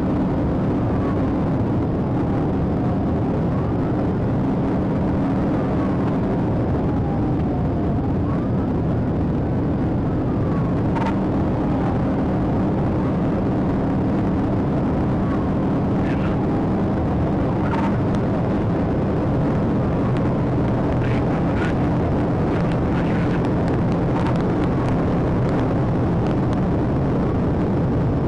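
Police patrol car driving at speed, heard from inside the cabin: steady engine and road noise, with a faint siren wailing up and down over it. A few sharp clicks come in the second half.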